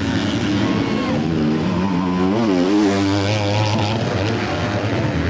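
Motocross race bikes' engines on the track, revving up and down in quick swings as the riders work the throttle, with a steadier lower engine drone underneath near the end.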